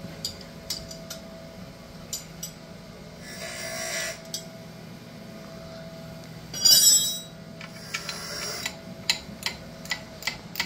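Hand tools working on metal tractor parts: scattered clinks, a few rasping scrapes (the loudest about two-thirds of the way in), then a run of evenly spaced clicks near the end.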